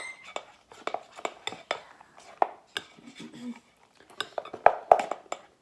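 A spoon knocking and scraping against the sides of a bowl as glue slime mixture is stirred, in quick irregular clicks with two louder knocks near the end.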